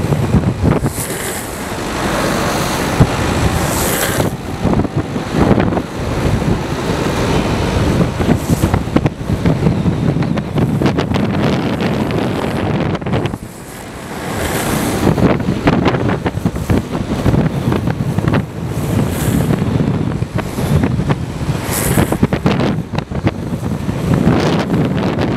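Heavy wind buffeting the microphone of a camera moving at downhill skateboarding speed, over the rumble of skateboard wheels rolling on asphalt. Several brief, louder hisses come and go.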